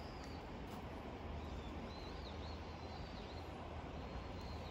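Steady rush of flowing river water, with a small bird chirping a few times in short, high, arched notes.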